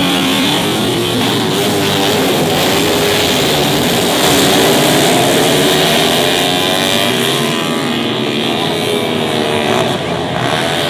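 Rock background music with guitar, mixed with the running engines of four-stroke underbone racing motorcycles.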